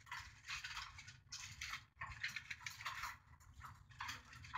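Aluminium foil crinkling in short, irregular bursts as it is pressed and tucked down as a drop lid over a simmering pan, with a low steady hum underneath.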